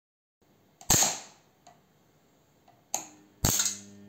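Microwave-oven-transformer spot welder shorted by a copper wire across its secondary terminals: sharp arcing snaps as the wire makes contact, once about a second in and twice near the end. After the last snap the transformer hums, buzzing under the heavy short-circuit current.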